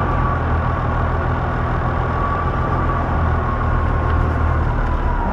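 Semi-truck's diesel engine idling, heard from inside the cab: a steady low hum with a thin steady whine above it.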